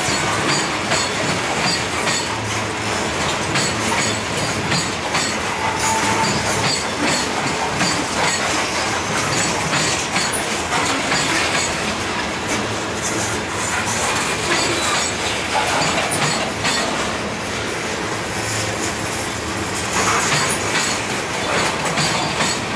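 Freight cars rolling past on jointed track: a steady rumble of steel wheels with clicking over the rail joints and some high-pitched wheel squeal.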